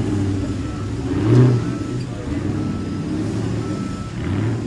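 Off-road truck engine revving under load as it climbs the course, surging about a second and a half in and again near the end.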